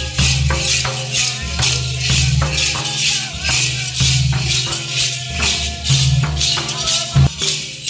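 Background music with a steady shaker beat over bass notes and a melody.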